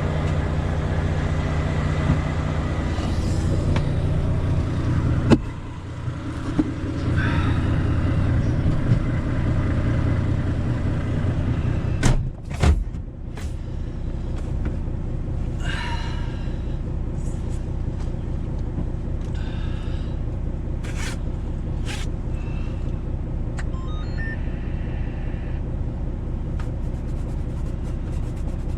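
Volvo truck running on the road, heard from inside the cab: a steady engine drone with road noise. The engine note dips briefly about five seconds in, and there are two sharp knocks at around twelve seconds.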